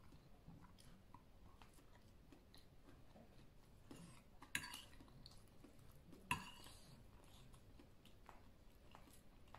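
Faint, quiet chewing of a mouthful of moo yor pork sausage and salad. Two brief sharp sounds, about four and a half and about six seconds in, come from the metal fork against the ceramic bowl as noodles are picked up.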